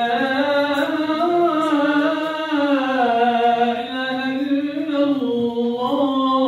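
A man calling the adhan, the Islamic call to prayer, into a microphone. He sings in long drawn-out notes, the pitch winding up and down, with a brief dip in level about four seconds in.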